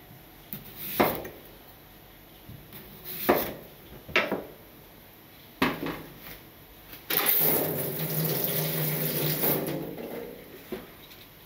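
Kitchen knife chopping through a sweet potato onto a wooden cutting board: four sharp chops spread over the first six seconds. Then a steady rushing noise for about three seconds, the loudest part.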